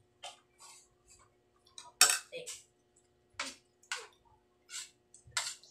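Spoons clinking and scraping against plates and bowls at a meal: a scattered run of short clinks, the loudest about two seconds in.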